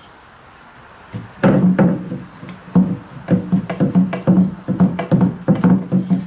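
Background music of plucked guitar notes, beginning about a second and a half in after a quiet start.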